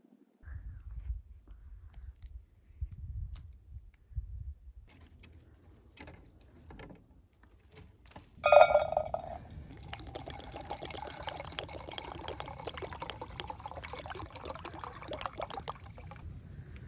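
Liquid pouring steadily for about six seconds, then stopping abruptly. Just before it comes a single sharp, ringing knock, the loudest moment, and before that a few low thuds and rumbles.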